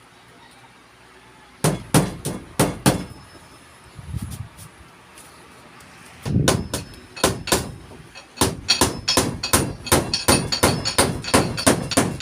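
Hammer blows: a few strikes about two seconds in, a few more past the middle, then a quick steady run of about four blows a second through the last few seconds.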